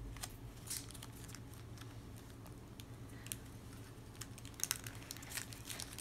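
Foil wrapper crinkling as small fingers pick and peel it off a plastic toy capsule: scattered faint crinkles and ticks, coming thicker near the end.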